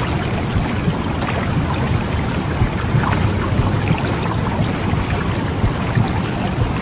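Simulated womb sound for soothing a baby: a steady, low, rumbling whoosh with faint crackle above it.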